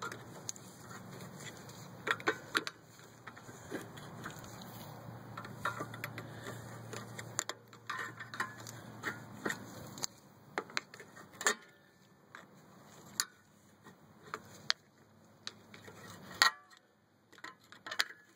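Scattered metallic clicks and knocks of a BMW X3's rear brake caliper and pads being pried and worked loose with a screwdriver, with one sharp knock near the end.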